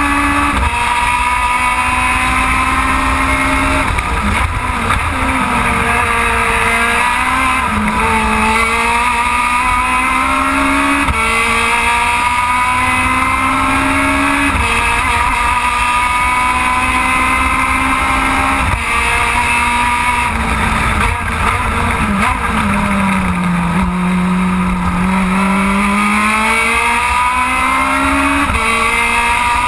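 Aussie Racing Car engine heard from inside the car at racing speed, revs climbing and dropping sharply several times as it shifts gears, then falling to a low note for a few seconds, as when slowing for a corner, before climbing again near the end.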